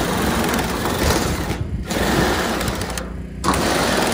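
DeWalt cordless drill driving a tin-cutter attachment, chattering as it cuts through corrugated sheet-metal roofing. It briefly stops twice, about one and a half seconds in and again around three seconds, then starts cutting again.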